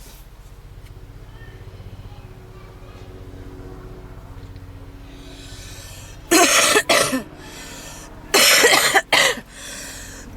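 A woman's harsh smoker's cough: after several quieter seconds, two bouts of loud coughing come in the second half, each a couple of hacking coughs in quick succession.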